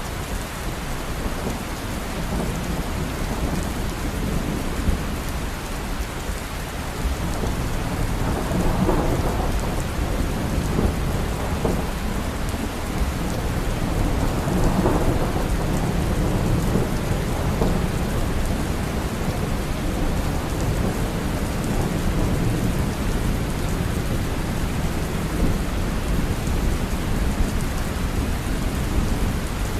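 Steady rain falling, with a low rumble underneath that swells twice, around eight and fifteen seconds in.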